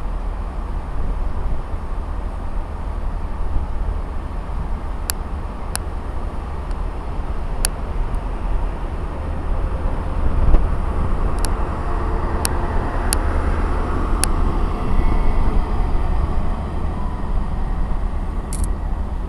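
Train running past at the platform: a steady low rumble that swells about midway and eases near the end, with sharp clicks now and then.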